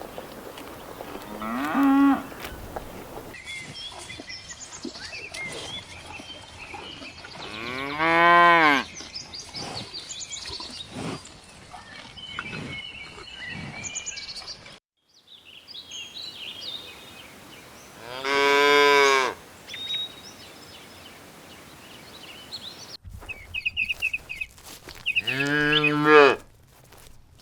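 Cows mooing four times: a short call about two seconds in, then three long moos spread through the rest, each rising and then falling in pitch. Birds chirp briefly between the last two calls.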